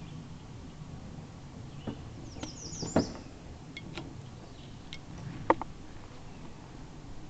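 Outdoor ambience: a steady low rumble with several sharp clicks and a brief run of high bird chirps about two and a half seconds in. The uploader takes the rumble for the strange whooshing noise in the sky.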